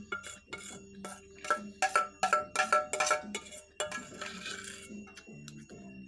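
Metal spoon clinking and scraping against a stainless steel bowl, a quick run of ringing clinks that is loudest between about one and a half and three seconds in.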